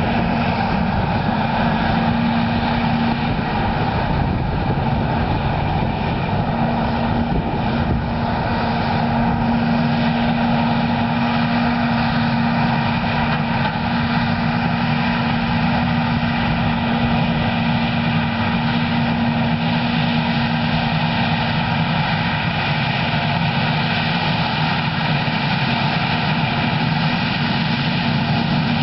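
Versatile 550 tractor's diesel engine running steadily under load while pulling a Cat 80 scraper, a constant drone with a strong low hum.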